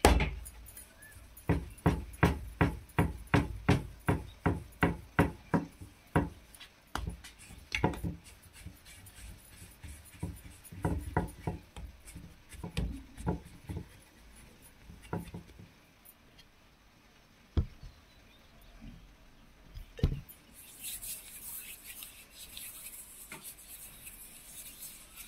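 Whole-wheat dough being kneaded by hand on a wooden counter: a run of regular thumps, about two a second, then slower, scattered knocks.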